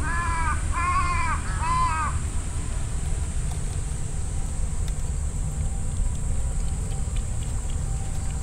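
A crow cawing three times in quick succession, each caw short and arched, over a steady low rumble.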